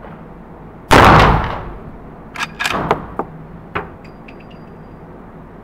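A single loud shot from a Model 1873 lever-action rifle in .45 Colt about a second in, echoing off the walls of an indoor range and fading over most of a second. A second or so later comes a quick run of sharp metallic clicks as the lever is worked to eject the case and chamber the next round, then another click and a few faint ringing ticks.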